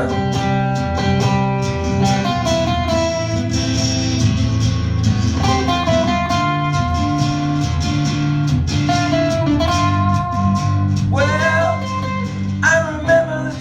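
Live acoustic band playing an instrumental passage of a song between verses: guitars plucking and strumming over a steady chord bed, with a held melody line that bends near the end.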